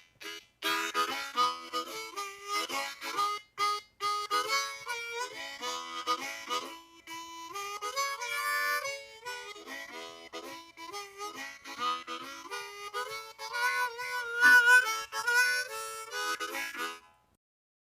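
Solo harmonica playing a lively tune with quickly changing notes, stopping about a second before the end.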